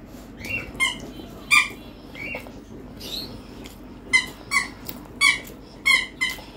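A dog's squeaky ball toy being chewed, squeaking sharply about ten times, some squeaks in quick pairs.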